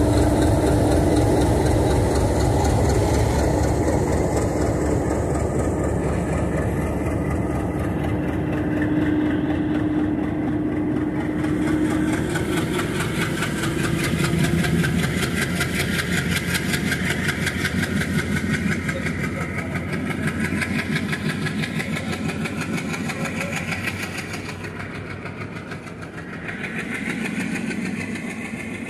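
Diesel locomotive accelerating hard away from the platform, its engine loud at first and then fading as it pulls off. The passenger coaches rolling past take over, with a fast, even rhythmic rumble from their wheels on the rails.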